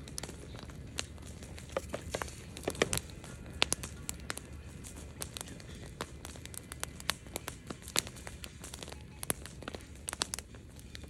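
Campfire wood crackling and popping: irregular sharp snaps, several a second, with a few louder pops, over a low steady rush.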